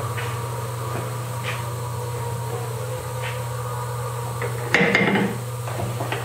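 Metal lever hold-down clamp on a sliding table released with a clunk about five seconds in, with a few light clicks of handling before it, over a steady low hum.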